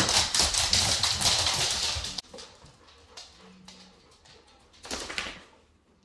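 Dogs scuffling on a wooden floor and dog beds, their paws and claws scrabbling and clattering, breaking off abruptly about two seconds in. Near the end comes another short burst of scrabbling.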